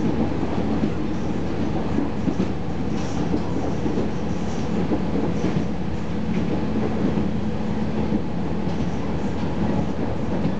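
Steady running noise inside a KiHa 40 series diesel railcar on the move: a low rumble of the diesel engine and the wheels on the rails, with a few faint rail-joint clicks.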